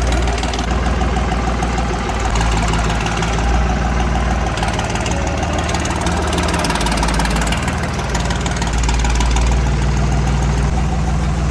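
New Holland TX Plus tractor's diesel engine running at low revs as it is driven slowly, its pitch shifting a few times.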